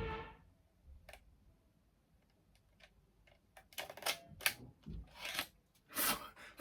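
A Sony Mavica floppy-disk digital camera being operated by hand: a brief tone at the very start, a couple of clicks about a second in, then a run of clicks and clatter from about three and a half seconds on.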